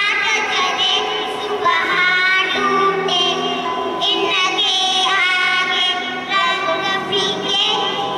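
Two young girls singing a song together into microphones, their voices amplified over a sound system.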